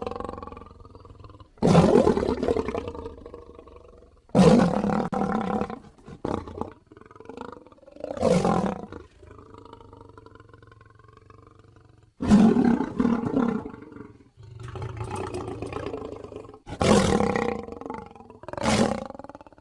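Cartoon alligator roar sound effects: about six loud roars of one to two seconds each, fading at the tail, with quieter rumbling growls between them.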